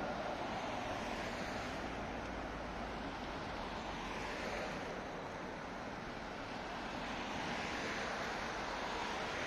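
Steady wash of city road traffic, with passing vehicles swelling a little louder about two seconds in and again near the end.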